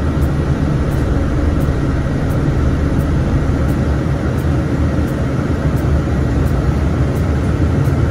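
Inside a moving city bus: steady engine and road rumble, deepest in the low end.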